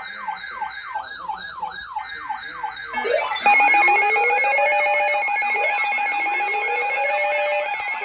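Electronic siren in a fast yelp, sweeping up and down about three times a second. At about three and a half seconds a louder layered alarm cuts in: steady tones with a slow rising wail that repeats every couple of seconds.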